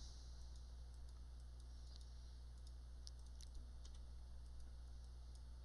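A few faint, scattered clicks of a computer keyboard and mouse over a steady low hum.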